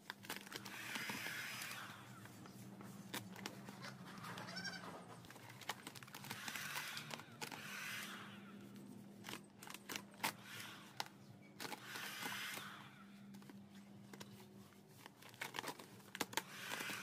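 A heat gun hums steadily while matte black vinyl sticker film crinkles and crackles as it is heated and stretched over a scooter body panel. Softer hazy sounds come and go every few seconds.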